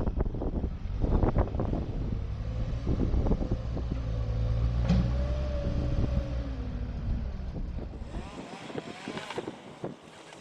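A large engine running with a steady low rumble and scattered knocks. The rumble cuts off abruptly about eight seconds in, leaving thinner outdoor noise.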